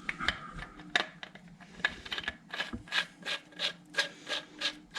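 Intake valve inspection cap being screwed back onto the cylinder head of a Tao Tao 110cc pit bike engine by hand, its threads rasping in short strokes that settle into about three a second.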